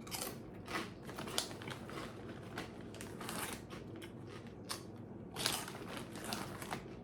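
Crunchy corn snacks being chewed: a run of irregular crisp crunches, the loudest a little over five seconds in.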